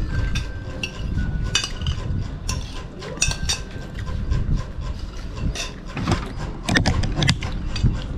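Irregular rubbing and knocking close to the microphone, sharper and more frequent about six to eight seconds in, as the camera sitting on the wooden table is picked up and handled.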